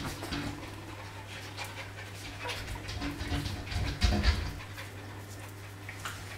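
Jack Russell Terrier mother and five-week-old puppies crowding together, with dog panting and small irregular scuffling noises. A louder dull bump comes about four seconds in, over a steady low electrical hum.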